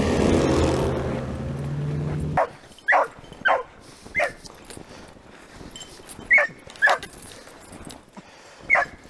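A snowmobile engine running as it passes close by, cutting off abruptly about two and a half seconds in; then a beagle baying in about seven short, separate calls while trailing a hare.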